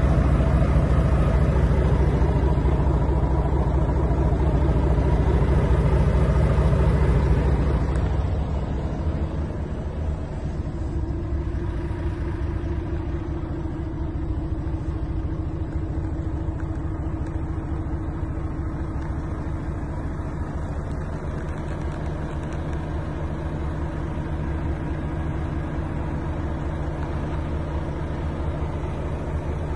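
Volvo FH 500 truck's 13-litre six-cylinder diesel idling steadily. It drops in level about eight seconds in and runs on evenly.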